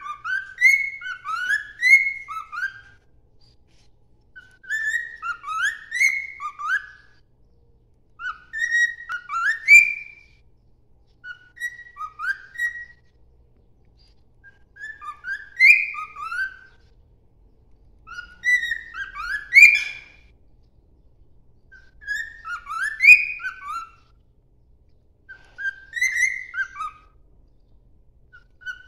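Cockatiel singing: a string of short whistled phrases of notes that slide up and down, each phrase a couple of seconds long with short pauses between.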